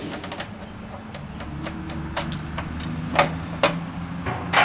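Scattered clicks and knocks, about eight, of a lug wrench being unclipped and lifted out of a wall-mounted holder, over a steady low hum.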